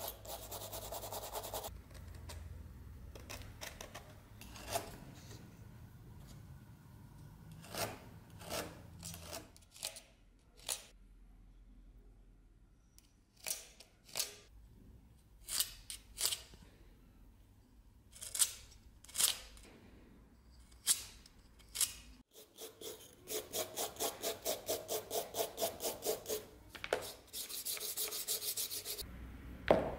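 Sandpaper rubbing back and forth over a carved wooden sword grip. A short spell of rubbing comes at the start, scattered sharp clicks and taps fill the middle, and quick even strokes of about three a second come near the end.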